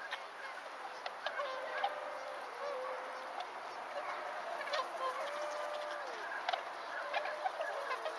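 A flock of whooper swans calling: many overlapping honking calls over a steady hiss of flock noise, with one longer call past the middle that drops in pitch at its end.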